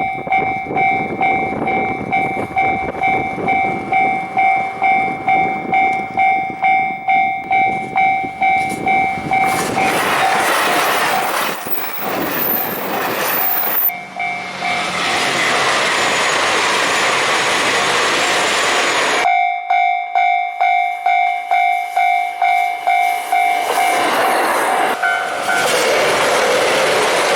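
A Japanese railway level-crossing warning bell ringing about twice a second. Trains pass over the crossing with a heavy clatter of wheels on rail, and the sound cuts abruptly between separate passes. There is a short horn note near the end.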